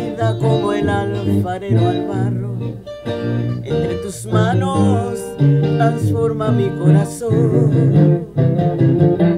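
A woman singing a Spanish-language Christian song into a handheld microphone over recorded guitar accompaniment. Her held notes carry a wavering vibrato.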